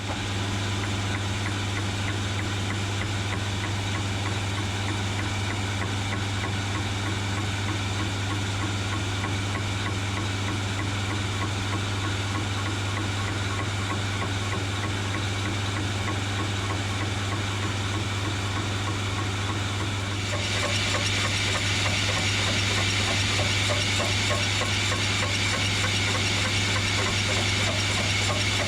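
Machine tool running a slow cut to split a small 4140 steel collet, its motor giving a steady low hum under the hiss of a mist coolant sprayer. The hiss gets louder about 20 seconds in.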